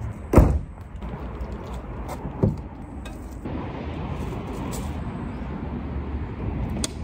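Car cabin noise while driving: a steady low rumble of engine and tyres. There is a sharp thump about half a second in and a lighter knock about two and a half seconds in.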